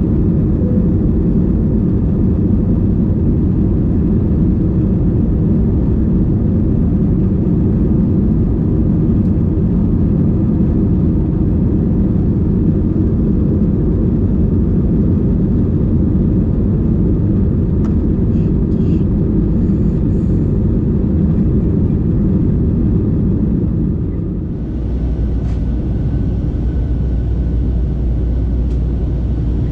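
Steady in-flight cabin noise of an Airbus A321ceo: a constant rush of engine and airflow noise, heaviest in the low range. About 24 seconds in it changes abruptly to a deeper low hum with more hiss on top.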